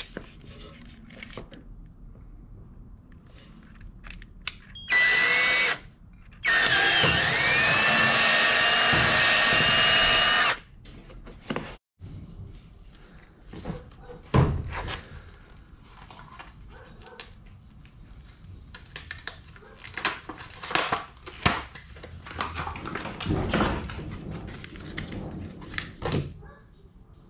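Cordless drill running in two bursts, a short one and then one of about four seconds, its motor whine rising as it spins up. It is followed by scattered clicks and knocks of handling tools and parts.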